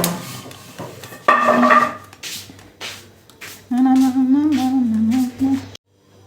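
A woman humming a wavering tune for about two seconds, cut off abruptly near the end, with a few short knocks and rustles before it.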